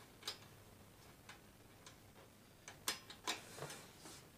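Faint, irregular light clicks from a Honda XR100's rear drum-brake rod adjuster nut being spun in by hand, its notches clicking over the pivot barrel that they lock against.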